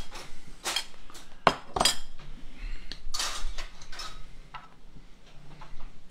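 Metal serving spoon clinking and scraping against serving bowls and plates as food is dished out: several sharp clinks in the first four seconds, one longer scrape a little after three seconds, and a few fainter clinks later.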